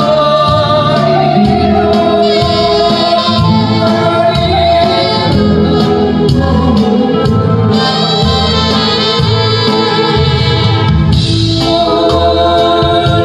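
A man singing a Korean trot song into a microphone, amplified through the hall's speakers, over a backing track with a steady beat.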